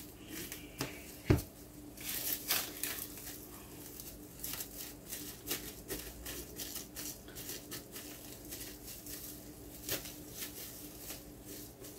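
Faint crinkling of a plastic bag and soft squishing as a bagged hand lifts and stretches risen yeast dough in a bowl, with a single knock about a second in.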